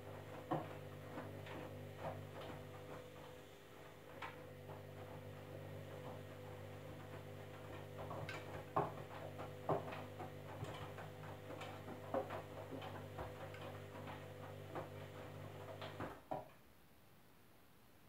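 Candy front-loading washing machine tumbling its wash: a steady motor hum with irregular clicks and knocks from the load and water in the drum. The hum and the knocking stop abruptly about sixteen seconds in as the drum comes to rest.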